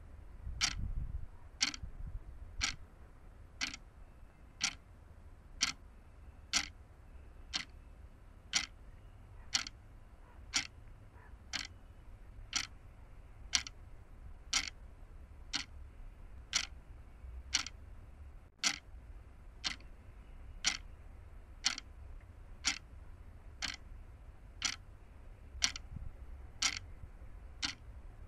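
A sharp tick repeating very evenly about once a second, over a steady low rumble.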